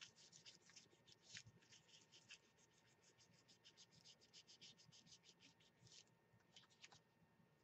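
Fingertips rubbing a sticker down onto a kraft-paper bubble mailer: quick, faint scratchy strokes, about six a second, that stop about six seconds in, with a couple more shortly after.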